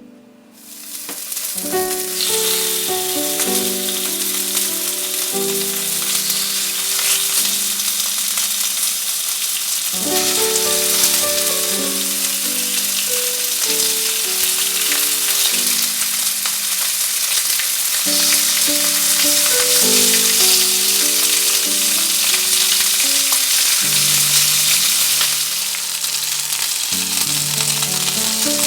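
Food sizzling in a hot frying pan, a dense steady hiss that starts suddenly about half a second in as the food goes into the oil, over background music.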